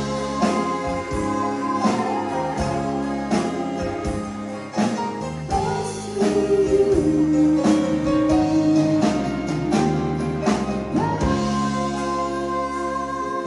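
A woman singing a song live into a handheld microphone, backed by a live band with keyboard, guitar and drums.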